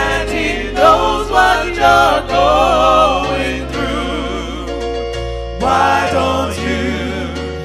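Gospel music with singing voices carried over sustained bass notes that change about once a second.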